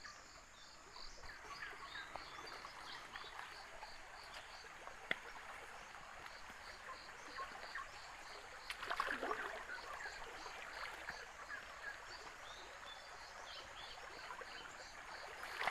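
Swift, swollen river water running steadily, with an animal call pulsing about twice a second. Footsteps and undergrowth rustle as someone moves along the bank, loudest about nine seconds in.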